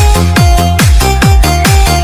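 Electronic disco dance remix: a kick drum with a falling pitch on every beat, about twice a second, under a held bass line and a steady synth tone.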